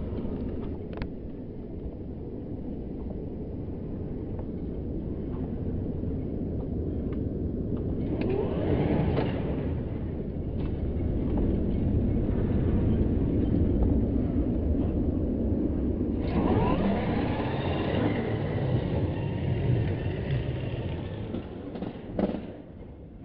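Radio-controlled buggy driving over tarmac, its motor whining up and down as it speeds up, once about a third of the way in and again for several seconds past the middle, over a steady low rumble.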